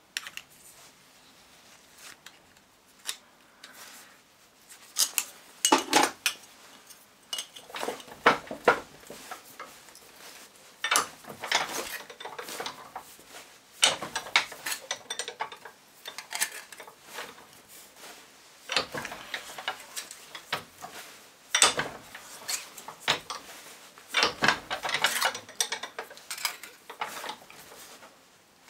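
Irregular metallic clinks, taps and scrapes as a thin metal strip for a homemade heatsink is bent and worked in a steel bench vise with pliers.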